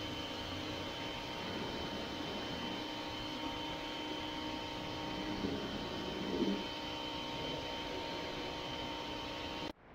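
Pressure washer running steadily, its undercarriage attachment spraying water to rinse all-purpose cleaner off a vehicle's underside. The sound cuts off suddenly just before the end.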